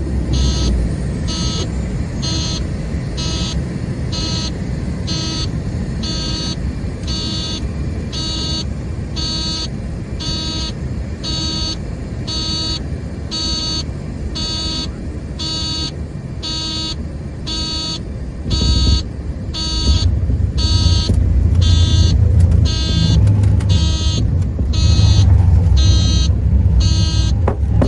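An electronic alarm beeping steadily, about once a second, over a low rumble that grows louder about two-thirds of the way in.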